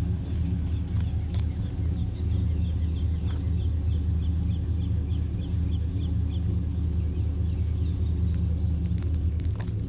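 A 2000 Chevrolet Silverado's 4.8-litre V8 idling steadily through a Flowmaster exhaust, a low, even rumble. From about a second and a half in, a bird calls over it with a quick run of short, high chirps, about three or four a second.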